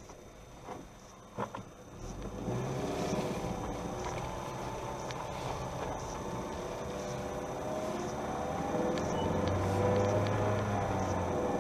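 Car engine heard from inside the cabin, quiet at first with a couple of small clicks, then pulling away from about two seconds in, its note rising and getting louder as the car accelerates.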